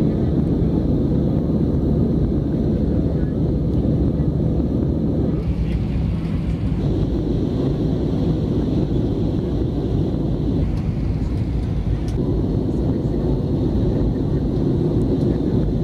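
Steady cabin noise of a jet airliner in flight, engines and rushing air heard from a window seat. It changes slightly in tone every few seconds where separate takes are joined.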